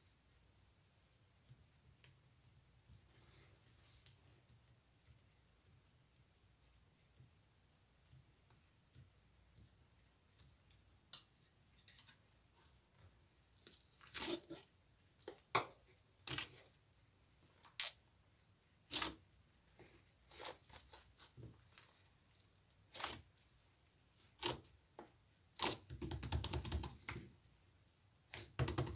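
Near silence for about ten seconds, then scattered clicks and short crinkling noises of something being handled, with a denser crackling burst near the end.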